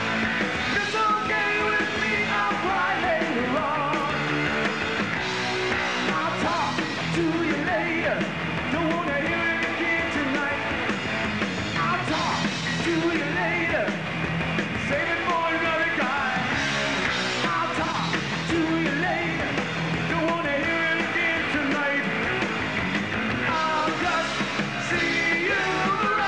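Rock band playing live, with electric bass and drums under a sung male lead vocal.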